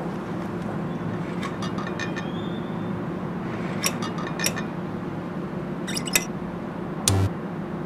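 A steady low hum with scattered sharp clicks and light clinks, a few at a time, and a heavier knock with a low thump near the end.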